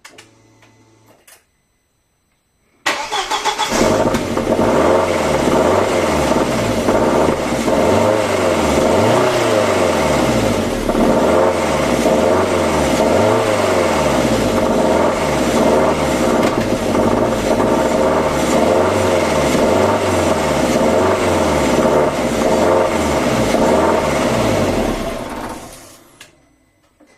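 Audi 1.8T four-cylinder turbo engine cranked and started, then running steadily with a wavering, rise-and-fall noise that repeats about once a second, before it is switched off near the end. The noise appeared after the timing belt, water pump and timing were replaced.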